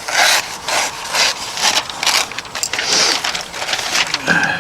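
CIVIVI Brazen pocket knife's 14C28N tanto blade slicing through thin paper: a run of quick scraping, rustling cuts, about two a second.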